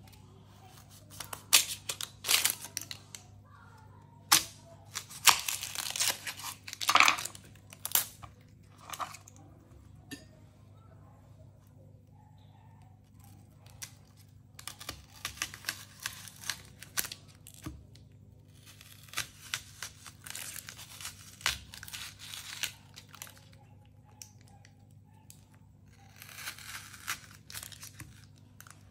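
Dry, papery vegetable skin being torn and peeled off by hand: irregular crackly tearing and crinkling in bursts, loudest and busiest in the first ten seconds, then lighter, scattered crackles.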